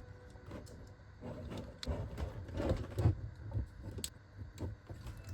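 Small plastic clicks and scrapes as the hard plastic parts of a Transformers figure are handled and rotated through its transformation: irregular ratchet-joint clicks and light rubbing, a few clicks a second.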